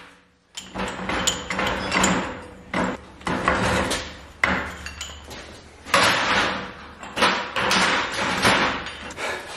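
Irregular metal clanks and knocks as a cast-iron Dana 60 steering knuckle and a steel ball joint removal tool are handled and shifted against a bench vise. There is no steady rhythm: a string of separate knocks, a few of them sharp.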